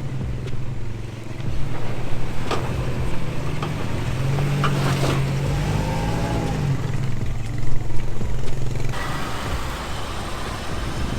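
A 2007 Honda Pilot's V6 engine runs at low trail speed. Its revs rise briefly and then fall back about halfway through. A sharp knock comes a couple of seconds in, and a steady hiss comes in near the end.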